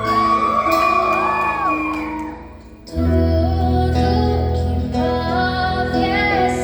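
A female voice singing with live band accompaniment: she holds a long high note with vibrato, the music drops away briefly, then the song starts up again with bass and a new sung line.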